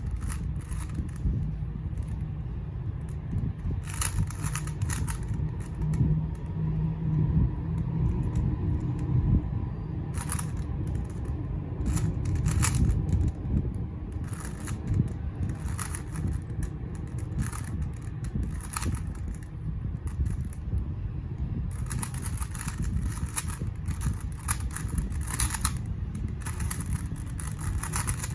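A 3x3 speedcube turned rapidly through a timed solve: quick clicking and clacking of plastic layers in bursts, densest near the end, over a steady low rumble.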